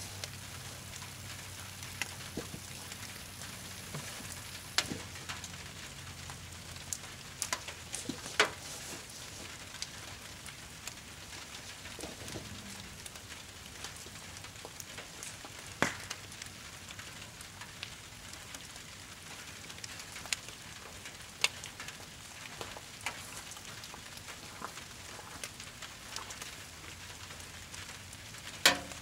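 Wood and brush campfire crackling, with sharp pops every few seconds, a few of them loud, over a steady hiss of light rain.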